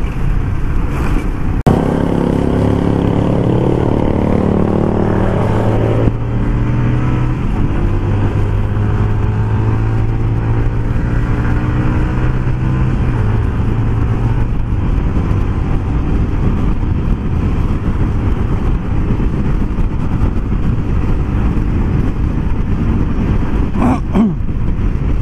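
Motorcycle engine accelerating, its pitch rising over a few seconds, then holding steady at cruising speed before easing off, with a constant rush of wind and road noise over the helmet mic.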